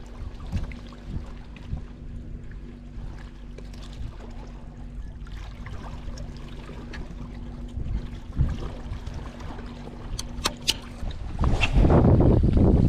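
Wind and sea water moving against rocks, with a steady low hum underneath. A few sharp clicks come a little after ten seconds, then a loud rush of wind on the microphone as the spinning rod is swung forward in a cast.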